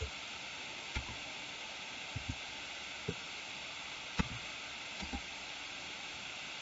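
Steady faint microphone hiss with about eight short scattered clicks and taps from computer keys and a mouse, the sharpest a little after four seconds.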